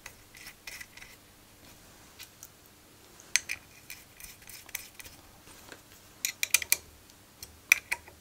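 Small steel nuts, washers and a hex key clinking and clicking against each other and the fixture plate as a brass blank is clamped to a rotary table. The clicks are sharp and scattered, with a small cluster a little past three seconds in, a busier run of clinks about six and a half seconds in, and a couple more near the end.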